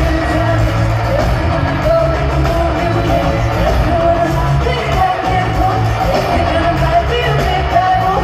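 Live pop concert music heard through an arena sound system: women's lead vocals sung over a heavy bass backing.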